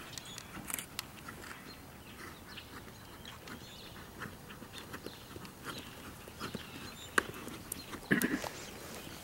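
Ridden horse trotting on a sand arena: soft hoofbeats with scattered light clicks, and a short louder burst just after 8 seconds.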